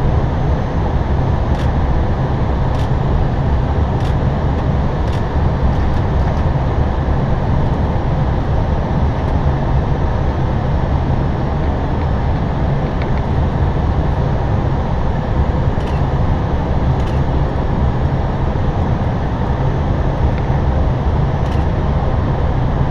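Steady low cockpit noise of an Airbus A320 on approach: airflow over the nose and the engines running, even throughout, with a few faint clicks.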